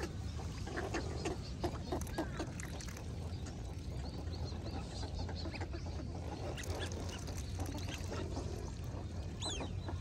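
A flock of ducks calling on and around a pond: many short quacks and chattering calls, busiest in the first few seconds, with a high thin whistled note near the end. A steady low rumble sits underneath.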